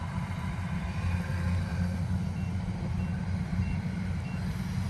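Vehicle engine running steadily with a low drone, while its reversing alarm gives four short high beeps evenly spaced about two-thirds of a second apart, starting about halfway through.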